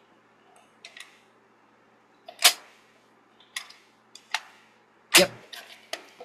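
Hands handling a plastic VHS cassette and its case: a string of sharp plastic clacks and clicks, about six in all, the loudest about two and a half and five seconds in. An electric fan hums faintly and steadily underneath.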